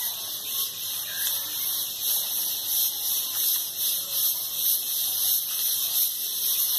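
Steady high-pitched hiss of outdoor ambience, swelling and fading slightly, with almost nothing in the low range.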